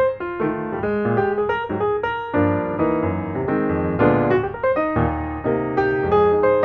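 Background piano music: a run of single notes and chords, each struck and fading.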